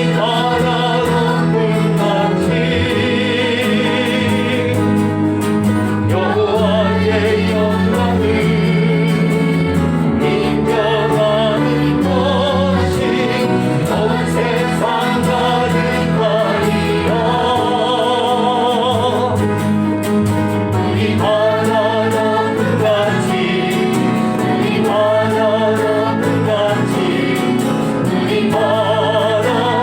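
Christian praise song: voices singing a melody over sustained instrumental backing.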